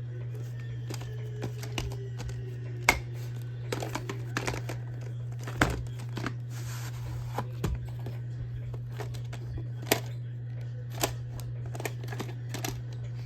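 Scattered sharp clicks and short rustling handling noises at irregular moments, loudest about three, six and ten seconds in, over a steady low hum.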